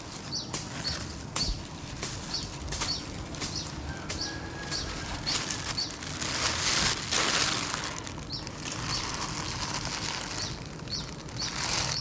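Rustling and handling noise, loudest for a couple of seconds in the middle, as wild honeycomb is cut and bagged in a plastic bag. Under it, a bird repeats a short high chirp about twice a second.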